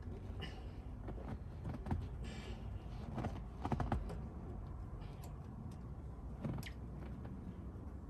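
Seat-cover fabric and straps being pulled and worked under a car seat: scattered rustling, clicks and knocks, the loudest knocks about two and four seconds in.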